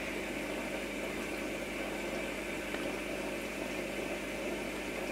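Aquarium air-lift filter running steadily: a continuous bubbling with a low mechanical hum.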